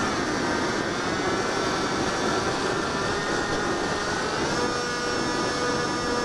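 Electric motor and propeller of a HobbyZone Delta Ray RC plane whining in flight, heard from the onboard camera with a rush of air noise. The pitch sits lower early on and climbs back up about four and a half seconds in, as the throttle is opened again.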